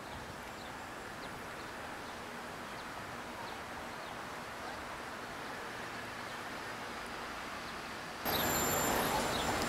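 Outdoor ambience: a steady wash of background noise with faint bird chirps. About eight seconds in it cuts abruptly to a louder stretch with more frequent chirping.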